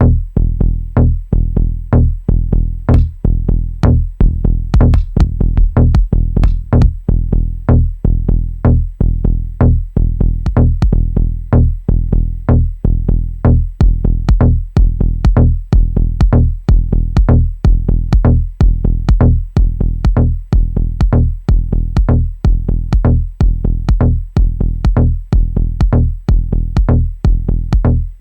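Dub techno groove played from Native Instruments Maschine: a drum-machine beat with an even pulse about twice a second over a sustained deep bass.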